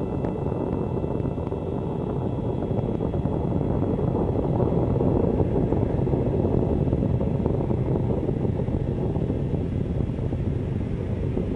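Upgraded Falcon 9 rocket's first-stage engines firing during ascent: a steady low rumble that swells slightly midway.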